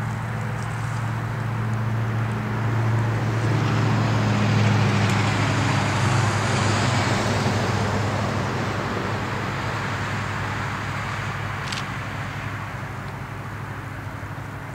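A car passing close by on the road, its tyre and engine noise swelling to a peak about six seconds in and then fading. Under it runs the steady low drone of an EMD GP38-2 diesel locomotive's 16-cylinder two-stroke engine, approaching slowly.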